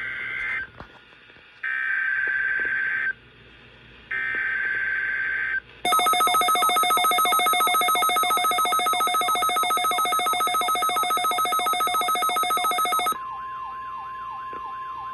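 Emergency Alert System test signal from NOAA Weather Radio: three short buzzy screeches of digital SAME header data, about a second apart, then about seven seconds of a rapidly pulsing electronic alarm. Near the end this gives way to the steady weather radio warning alarm tone with a warbling tone over it.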